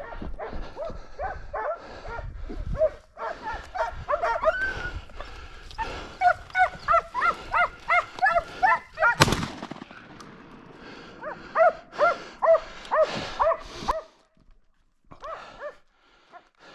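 Hunting dogs barking and yelping at a wild boar, in fast runs of short high barks, several a second. The barking breaks off briefly around ten seconds in and stops about fourteen seconds in. There is one short burst of noise about nine seconds in.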